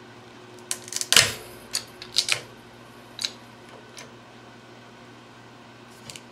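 Homemade hydraulic nut cracker pressing a black walnut: a sharp crack about a second in as the shell gives way, followed by several smaller snaps and clicks, with two faint clicks near the end.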